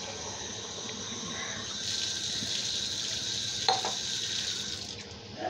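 Water being poured into a hot wok of fish and cauliflower curry, a steady hissing pour that grows louder about two seconds in. There is a single light knock a little past halfway.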